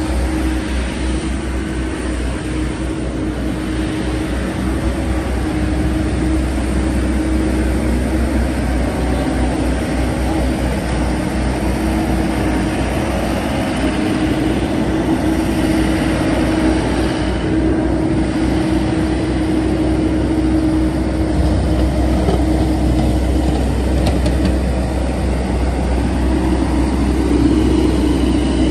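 LeeBoy asphalt paver's diesel engine running steadily, a constant low rumble with a steady hum, growing slightly louder toward the end.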